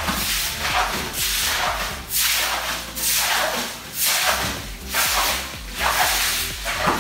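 Broom and scrubbing strokes swishing water across a flooded concrete floor, a wet swish roughly once a second.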